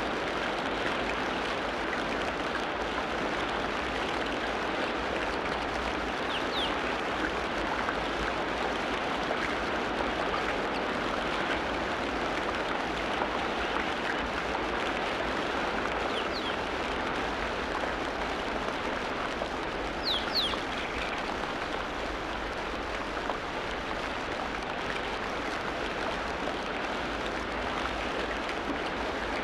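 Steady rush of running water, with a few brief bird chirps breaking through it three times.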